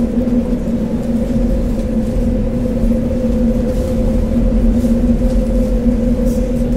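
Steady mechanical hum: an even, pitched drone over a low rumble that doesn't change.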